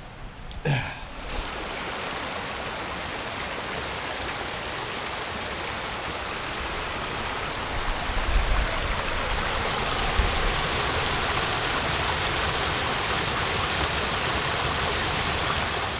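Mountain creek rushing and splashing over rocks in a steady wash of water, louder from about eight seconds in. A short falling swoosh comes about a second in.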